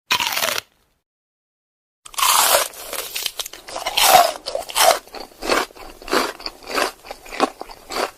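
Biting into crunchy food: one short crunchy bite, a pause, then a loud crunching bite followed by regular chewing crunches, about three every two seconds.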